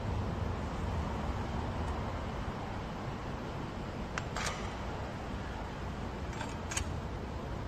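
A socket tool clicking against the valve cover hold-down nuts of a Honda B-series VTEC engine as they are run down, a few sharp metallic clicks in two pairs, about halfway through and near the end, over a steady low hum.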